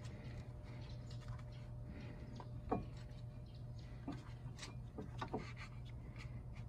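Small brush scrubbing and scratching around a brake caliper piston to clear brake dust: faint irregular scratching over a steady low hum, with a few short high chirps, the loudest about three seconds in.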